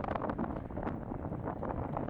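Strong wind buffeting the microphone: a steady rushing noise with quick, uneven flutters throughout.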